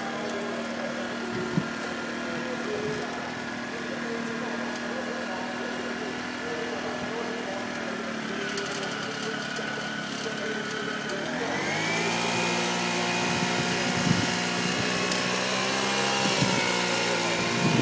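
Radio-controlled scale Caterpillar wheel loader running under load with a steady mechanical hum; about two-thirds of the way through the pitch rises and holds higher and a little louder.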